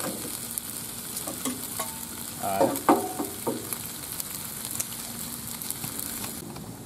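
Steak, onions and peppers with melted cheese sizzling on the Blackstone 22-inch griddle's flat steel top, with a metal spatula scraping and clicking against the plate as the meat is worked. The sizzle cuts off near the end.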